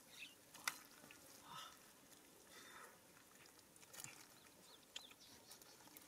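Faint, scattered wet clicks and squelches of gloved hands picking stranded fish out of soft mud.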